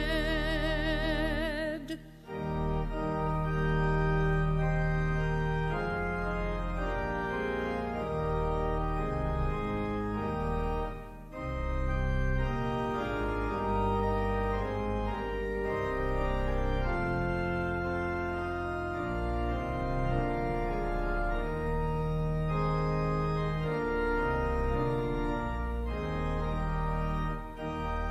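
Organ playing a slow hymn tune in sustained chords, with short breaks between phrases about eleven seconds in and again near the end. In the first two seconds a held note with wide vibrato, the last note of the hymn, sounds over it and then stops.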